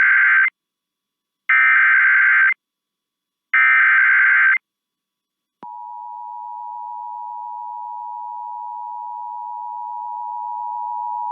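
Emergency Alert System (SAME) header: three one-second bursts of warbling data tones, about a second apart, sent ahead of a severe thunderstorm warning. About a second after the last burst the steady EAS attention tone near 1 kHz starts and holds.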